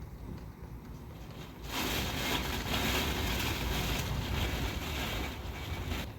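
Typhoon wind rushing in a strong gust over a low rumble: a loud hissing rush comes up about two seconds in and falls away just before the end.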